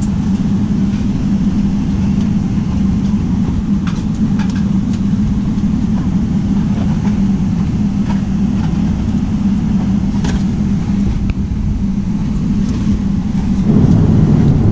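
Steady in-flight cabin drone of a Boeing 777-300ER, the engine and airflow noise heard from an economy seat, with a few faint clicks. The drone grows louder near the end.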